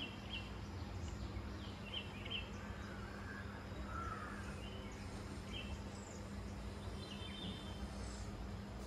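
Birds chirping and calling in short scattered bursts over a steady low outdoor rumble and a faint constant hum.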